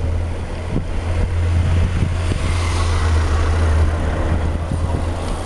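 Low, steady rumble of the lead car's engine as it drives slowly past. From about two seconds in, a large group of road bicycles rides by close up, and the hiss of their tyres rises and fades.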